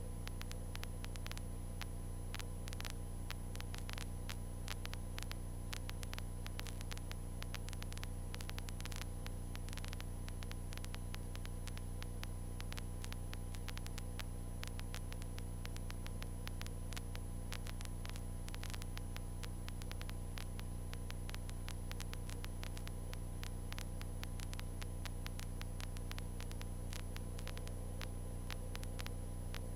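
Cessna 152's four-cylinder Lycoming engine in steady flight, a constant low drone heard through the cockpit intercom audio, with frequent static clicks and crackle over it.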